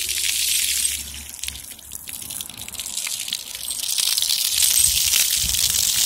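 Water spraying from ground-level splash-pad fountain jets and splashing on the wet pavement, a steady hiss. It fades about a second in and builds back up from about four seconds.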